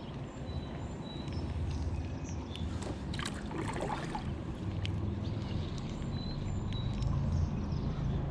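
Steady low rush of river water and wind, with a brief splashing, rustling burst about three seconds in, a few sharp clicks and faint high chirps.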